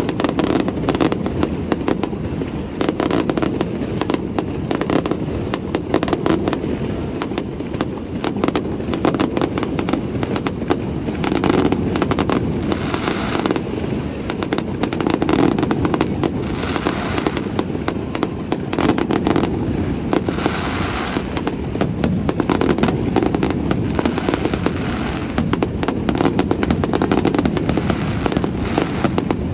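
Fireworks display: a dense, unbroken barrage of bangs and crackling shell bursts, many shots a second.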